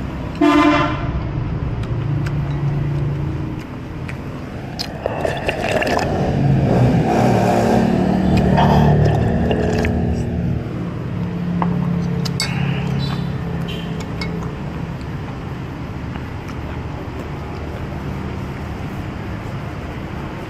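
Street traffic: a vehicle horn toots once, briefly, about half a second in, over a steady traffic rumble. A motor vehicle passes loudly in the middle.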